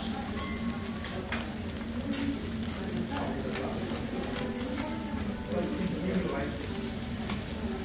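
A5 wagyu sirloin steak sizzling steadily on a hot teppanyaki steel griddle, with scattered pops and crackles of spitting fat.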